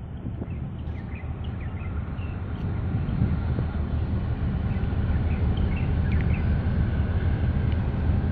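Low, steady engine rumble of a large container ship and its tug passing close, slowly growing louder, with birds chirping faintly over it.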